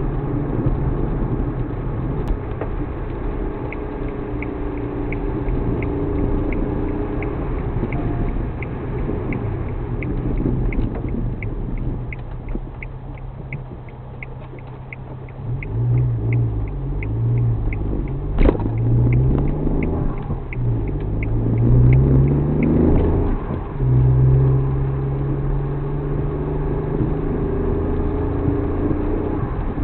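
Suzuki Alto Works HA36S turbo three-cylinder engine running while driving, its hum rising and falling in pitch. A steady fast ticking of about two to three clicks a second runs through most of it, and there is one sharp knock about 18 seconds in.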